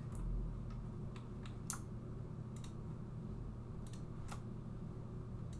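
Irregular computer mouse and keyboard clicks, about nine scattered sharp clicks, over a steady low hum.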